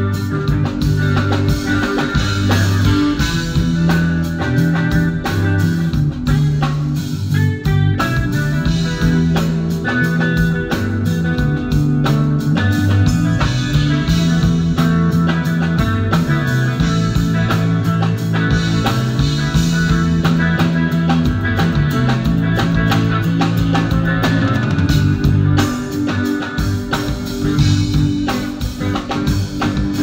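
Live band playing without vocals: electric guitar, bass guitar and drum kit, with a moving bass line under the guitar and steady drumming with cymbals.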